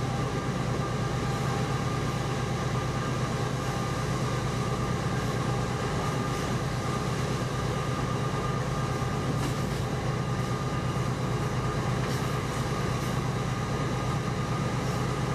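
Steady running noise inside the cab of a moving diesel-electric freight locomotive: a low, even engine hum with a faint steady whine above it.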